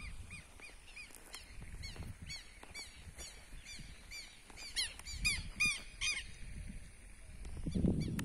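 Birds calling in a rapid run of short, evenly repeated notes. More calls overlap in a busier burst about five to six seconds in.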